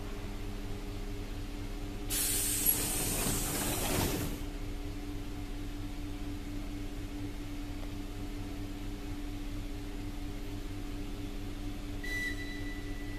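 ER2R electric train standing with a steady hum. About two seconds in there is a loud burst of compressed-air hiss with a click as its pneumatic doors close. Near the end comes a shorter hiss with a brief high tone.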